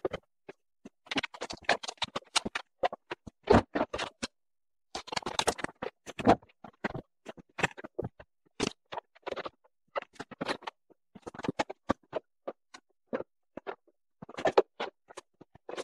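LiFePO4 prismatic battery cells being slid and set into a stainless-steel frame: irregular knocks, taps and scrapes as the cells meet each other and the frame, in short clusters with brief pauses.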